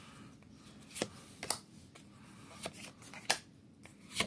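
Magic: The Gathering cards being handled and flipped through by hand, giving about five sharp card flicks or snaps at irregular intervals roughly a second apart.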